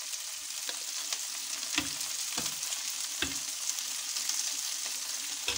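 Sliced onions frying in olive oil in a pan, a steady sizzle as they soften, with a few soft knocks as a slotted skimmer lifts boiled potato slices out of the pot.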